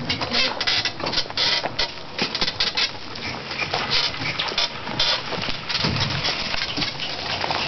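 Horse-drawn wooden cart rolling past on a rough forest dirt track: wheels and frame rattling and clattering irregularly, with the horse's hooves on the ground.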